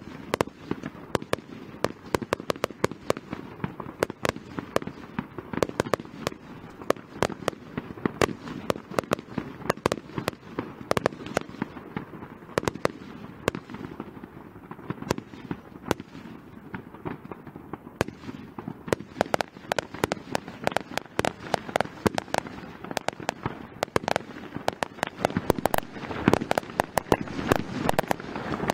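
Fireworks display: a rapid, continuous string of sharp aerial shell bursts and crackling reports, several a second, thickening and getting louder near the end.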